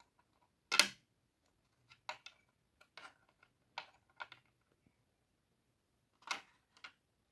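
Small plastic toy furniture being set down and pressed into place in a plastic dollhouse: a scatter of light clicks and taps, the sharpest about a second in.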